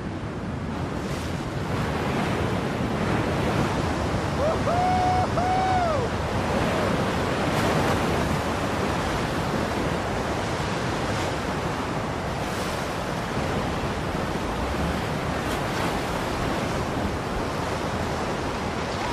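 Steady rush of rushing water, like a river running through rapids. A short pitched call, rising and falling a few times, cuts through it about five seconds in.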